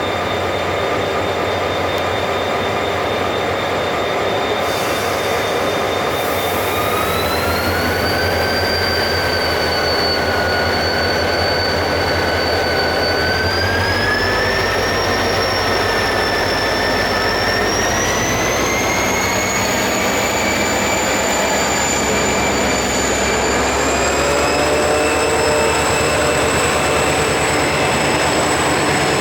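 Passenger train pulling out of a station and gathering speed: a steady rumble with a whine that rises in pitch in several steps.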